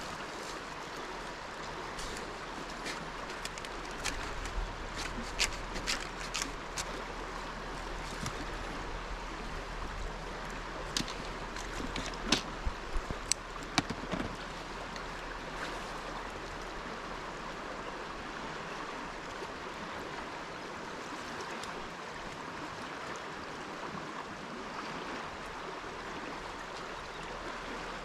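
Steady rush of river water running past. A scattering of sharp clicks and knocks comes through a few seconds in and again near the middle.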